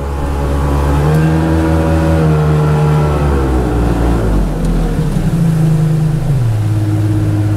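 A boat's motor running underway. Its engine note rises about a second in, drops around three to four seconds, then rises and drops again as the throttle changes.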